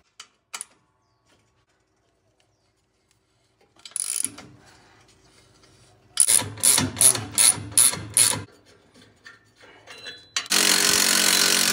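Hand ratchet with a 13 mm socket working the bolts on an exhaust flange, clicking in a run of about eight strokes, roughly three a second, midway. Near the end a loud, steady rushing noise lasts about two seconds.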